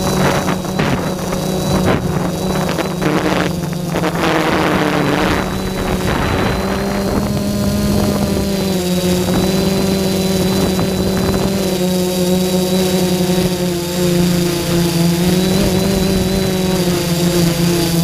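Quadcopter drone's electric motors and propellers humming steadily, heard from the GoPro mounted on the drone. The pitch shifts a little around the middle as it manoeuvres, and there are bursts of crackling noise in the first few seconds.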